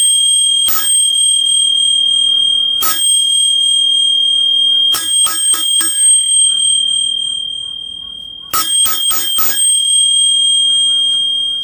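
Metal sword blades clashing: two single strikes, then two quick flurries of about four clangs each. Every hit leaves a long, high metallic ring that fades slowly.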